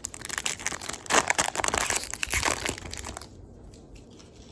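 Trading-card pack wrapper (Topps Chrome) being torn open and crinkled, a dense crackling that stops a little over three seconds in.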